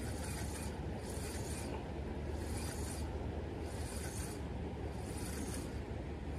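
Steady rush of creek water with a deep low rumble, and a soft hissing rasp that repeats about once a second.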